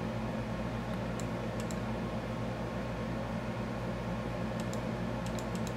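Computer mouse clicking a few times about a second in and in a quick cluster near the end, over a steady electrical hum.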